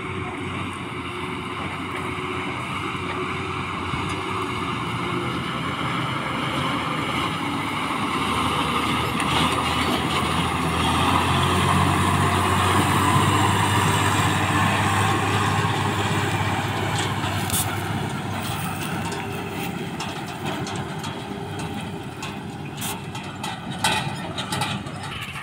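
Truck-mounted borewell drilling rig driving slowly across a field. Its diesel engine grows steadily louder as the truck approaches and passes close by, then fades as it moves away. A few sharp clicks or knocks come near the end.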